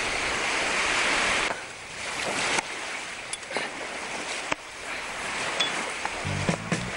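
Sea waves breaking on a beach, a steady rush of surf that drops to a quieter rush with a few scattered clicks about a second and a half in. Music with a repeating bass pattern starts near the end.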